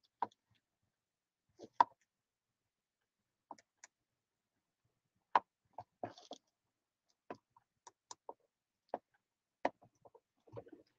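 Irregular light clicks and taps, a dozen or more at uneven spacing, with two louder ones about two and five seconds in.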